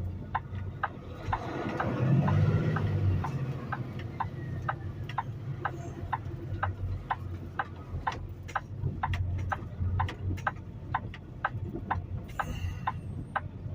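Semi truck's turn-signal flasher ticking steadily, about two to three ticks a second, inside the cab over the diesel engine running; the engine rises briefly about two seconds in.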